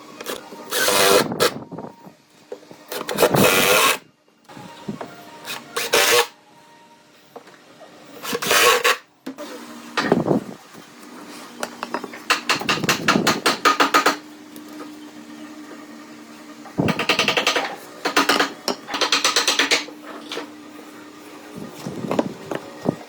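A woodworking power tool working wood in repeated short bursts of one to two seconds, with quiet pauses between them.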